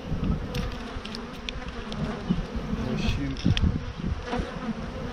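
Honeybees buzzing around an open hive, with a few short knocks and scrapes as a wooden frame is worked loose and lifted out.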